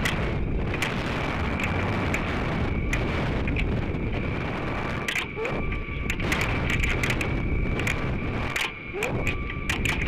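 Air rushing past a descending sounding rocket, heard through its onboard camera's microphone: a steady low rumble broken by irregular clicks and knocks, with a faint steady high whine.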